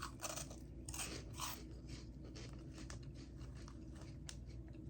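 A person biting into and chewing a crunchy potato chip, with several sharp crunches in the first second and a half, then softer crunching as the chewing goes on.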